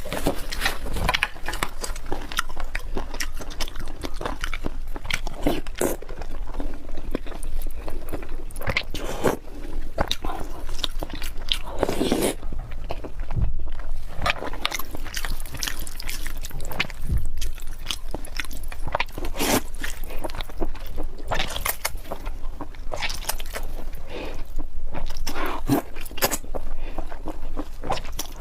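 Close-miked eating: a person biting and chewing food, with irregular crisp crunching clicks and mouth sounds throughout.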